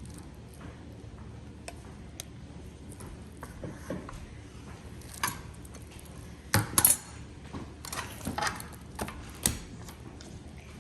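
A scattered series of sharp clicks and knocks from small hard objects being handled, loudest in a cluster about two-thirds of the way in, over a low steady background hum.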